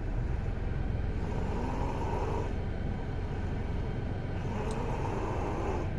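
A man snoring in his sleep: twice a rasping snore swells and fades with his breathing, about three seconds apart, over a steady low rumble.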